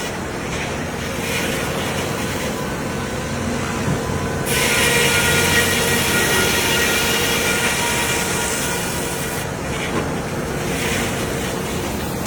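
Sawmill machinery running with a steady mechanical hum of several fixed tones. A loud high hiss comes in over it from about four seconds in and drops away near nine and a half seconds.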